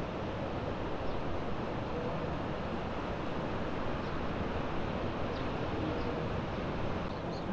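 Steady rushing noise of ocean surf breaking on the beach, mixed with wind buffeting the microphone.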